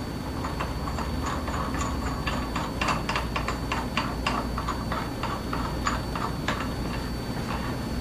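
Light, irregular metallic ticks and clicks as a nut is spun by hand onto an M20 tension control bolt held in a load cell, over a steady low hum.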